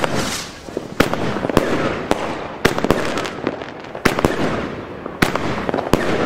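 Funke Kamuro firework battery firing shot after shot: about eight sharp bangs, roughly one a second, with a dense noisy wash lingering between them.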